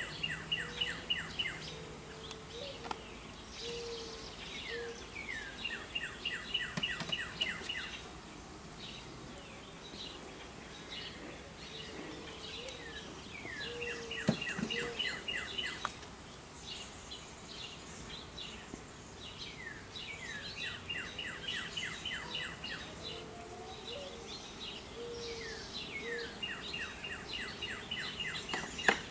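A songbird repeatedly singing a short, fast trill of rapid high strokes, about every five to seven seconds, with lower whistled notes from another bird in between. A few sharp knocks stand out, the loudest about halfway through and near the end.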